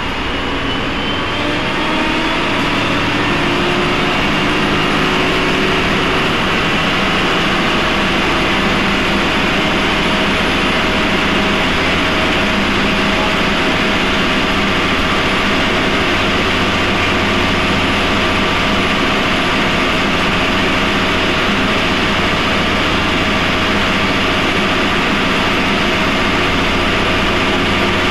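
Cummins ISMe-335E-30 six-cylinder diesel engine (10.8 litres, Euro 3) of a Transbus Trident III bus running under way. Its pitch rises over the first few seconds, then it runs steadily.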